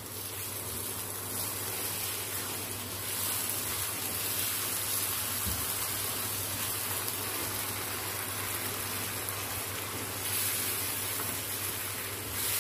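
Roasted moong dal in hot oil sizzling steadily in a wok as water is poured in and stirred, so the water spits and fizzles on the hot pan.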